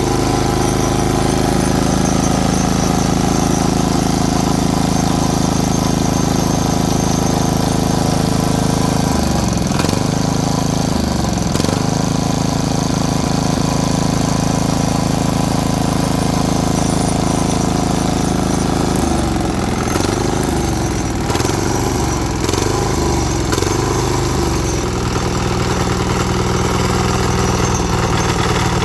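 Single-cylinder 173F diesel engine of a mini tractor running steadily. Its speed dips and recovers twice about ten seconds in, then several times in quick succession around twenty seconds in, before settling back to a steady run.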